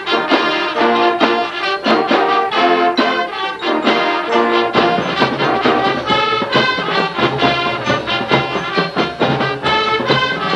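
Marching band brass section, with sousaphones and trumpets, playing a brisk tune in short, accented chords over marching drums.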